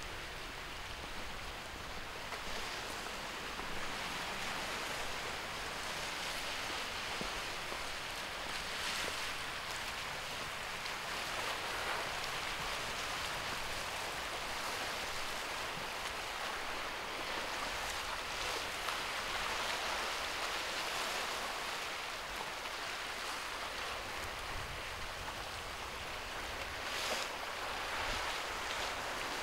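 Sea surf washing and breaking against black lava rocks along the shore: a steady rush of water that swells and eases every few seconds.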